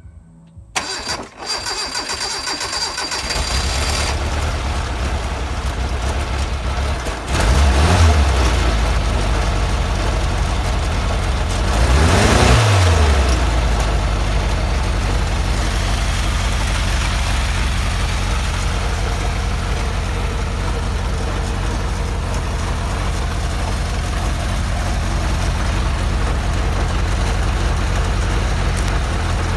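Homemade helicopter's engine starting: it catches about three seconds in, revs up and back down twice, around eight and twelve seconds in, then runs steadily.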